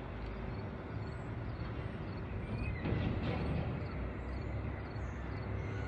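Outdoor background noise: a steady low rumble, swelling slightly about three seconds in.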